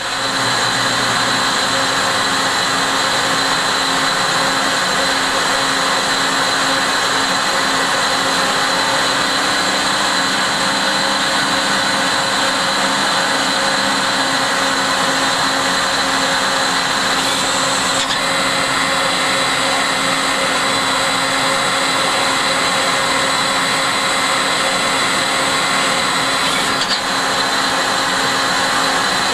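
Citizen A20 VII Swiss-type CNC lathe thread whirling a screw thread under flood coolant: a steady machine whine with several fixed tones over a dense hiss. The tone shifts slightly about 18 seconds in and again near the end.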